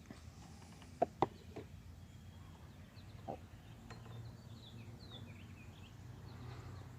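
Wild birds chirping in short, high, downward-sliding calls, mostly in the second half. Three short, sharp sounds come close together about a second in, one more near the middle, and a faint low hum sits underneath later on.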